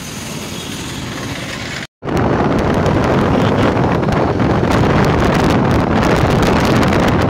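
Steady street noise for the first two seconds, then a sudden cut to loud wind rushing over the microphone with a motorcycle engine running underneath, as heard riding pillion at road speed.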